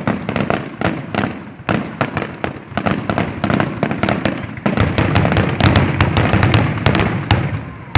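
Fireworks finale: a rapid barrage of overlapping bangs and crackles with a low booming rumble underneath. It grows denser and louder from about halfway in.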